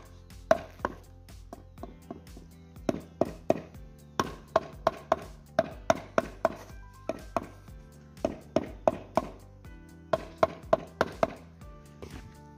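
Rubber mallet tapping a granite strip down into a wet mortar bed to set it level. The sharp knocks come in short runs of about three a second, with brief pauses between runs.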